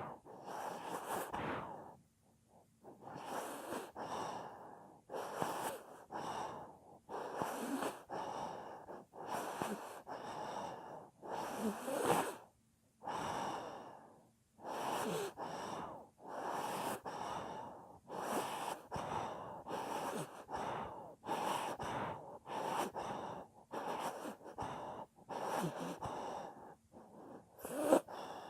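Sleeping dog snoring: a long run of wheezy, rasping breaths, about one every second, with two short pauses.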